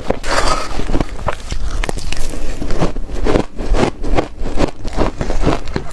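Ice being bitten and chewed, a rapid irregular run of crisp crunches, several a second.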